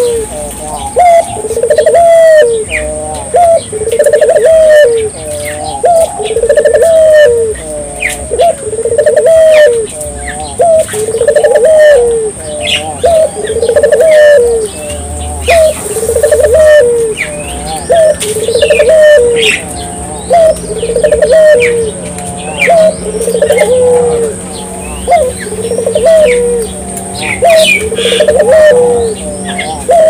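Ringneck dove (burung puter) calling continuously, a short hooked coo repeated about once a second. Fainter high chirps and a steady high whine run behind it.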